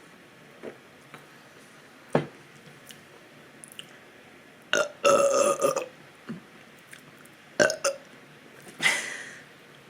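A person burping several times, about four burps. The longest, drawn out for nearly a second, comes about five seconds in. The burps come from drinking carbonated seltzer kombucha.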